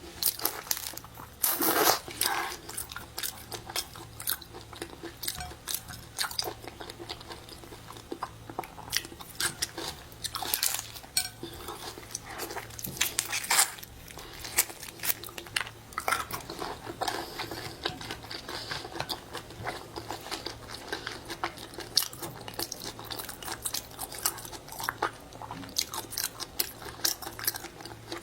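Close-miked eating of seafood: repeated bites and crunches with chewing in between, the loudest crunches coming about two, eleven, thirteen and twenty-two seconds in.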